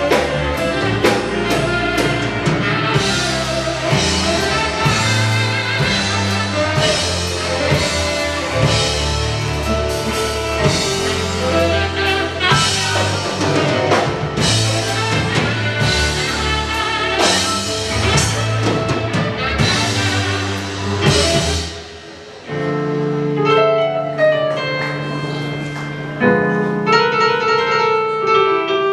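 Live rock band playing with drums, bass guitar and a saxophone solo. About three-quarters of the way through, the drums drop out and the music thins to piano and held notes.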